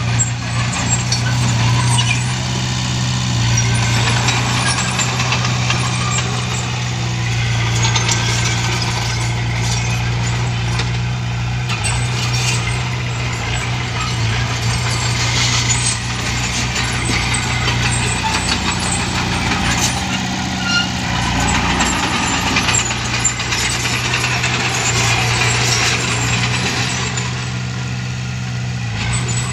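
Small crawler bulldozer's diesel engine running steadily under load as it pushes and levels loose dirt, with scattered clanks from its steel tracks.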